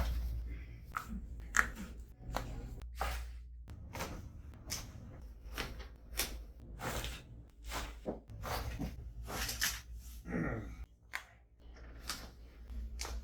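Irregular sharp clicks, pops and thuds from chiropractic adjustments, with the joints, hands and treatment table all making noise, about two a second over a low steady hum.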